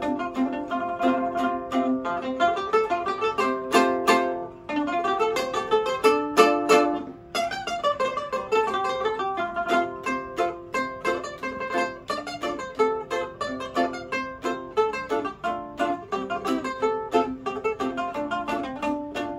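Two đàn tỳ bà (Vietnamese pear-shaped lutes) playing a duet of plucked melody with passages of fast repeated plucking, pausing briefly twice, about four and a half and seven seconds in.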